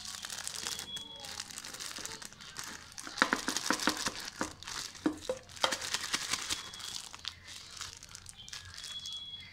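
Thick plastic bag crinkling and rustling as it is handled and gathered up around a soft food mixture. The crinkling is densest and loudest about three to six seconds in.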